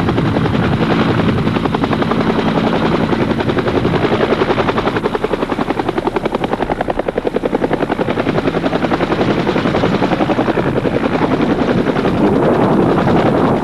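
Bell UH-1H Huey helicopter in a low hover: its two-bladed main rotor beats in a rapid, even thump over the running turbine engine, getting a little louder near the end.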